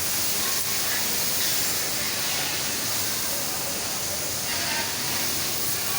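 Conveyor machinery running with a steady, even hiss-like noise.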